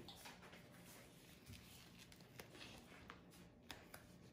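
Near silence, with a few faint light ticks and rustles of hands handling a vinyl decal sheet.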